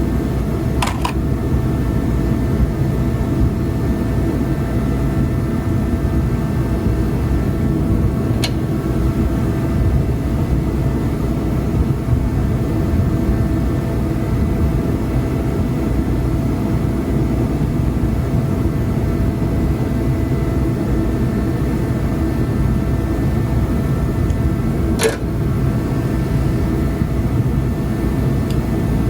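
A steady mechanical drone with a constant hum over it, broken by a few light clicks about a second in, around eight seconds in and near the end.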